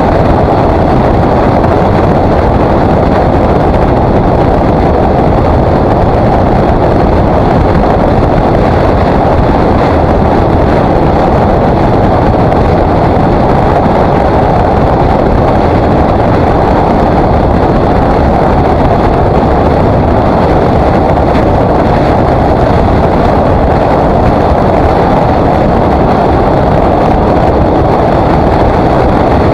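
KTM 950 SMR motorcycle cruising at steady road speed: a constant rush of wind on the camera's microphone over the drone of its V-twin engine, with no change in pace.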